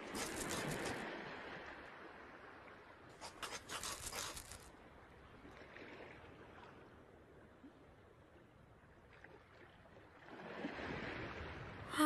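Quiet scratchy scraping and clicking on sand, in two short spells: one right at the start and one around three to four seconds in, with more rustling swelling near the end.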